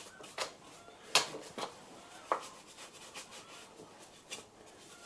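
Paintbrush bristles brushing against the steel chuck of a metal lathe: a few short, quiet brushing strokes at irregular intervals.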